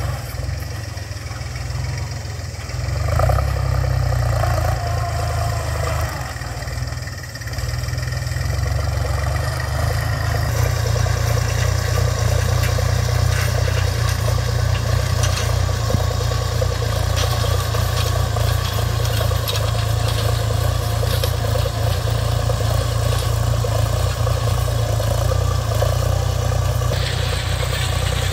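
Iseki 35 tractor's diesel engine running steadily under load while pulling a six-disc plough through dry soil, a continuous low drone that fills out and grows louder about ten seconds in.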